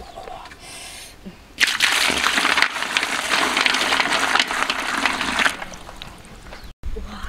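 Water poured in a stream into a large metal wok onto a heap of snails and duck eggs, splashing loudly for about four seconds from about a second and a half in.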